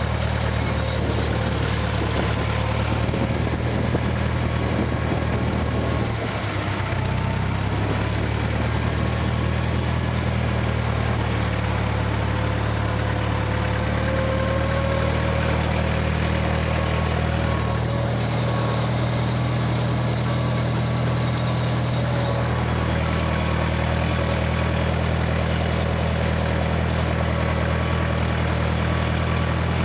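International 474 tractor engine running steadily under way, with a brief dip and shift in its note about six seconds in. A hiss rises over it for a few seconds after the midpoint.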